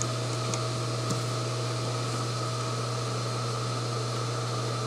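RDO LC-series induction melting system running at turned-down power while melting copper: a steady fan-like hum with a strong low electrical drone and a faint higher tone, unchanging.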